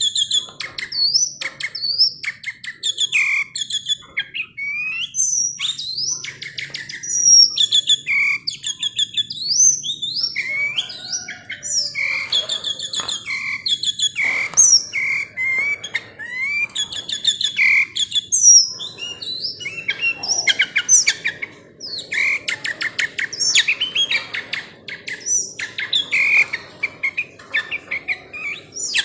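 A tame sooty-headed bulbul (kutilang) singing without pause: a fast, varied stream of short chirps and whistled notes, some sliding up and some sliding down.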